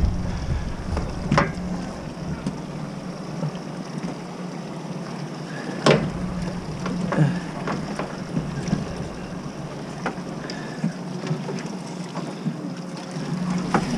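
A steady low hum from the boat's machinery, with a few sharp knocks about one and a half, six and seven seconds in as a dip net is worked in a live-bait bucket.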